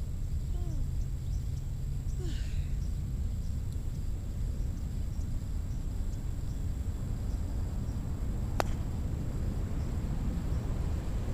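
Outdoor ambience with a steady low rumble of wind on the microphone and a few faint bird chirps, broken about three-quarters of the way through by a single sharp knock of a croquet mallet striking a ball.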